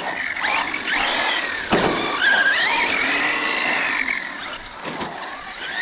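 Small electric motors whining, their high pitch rising and falling with the throttle, with a single knock a little under two seconds in.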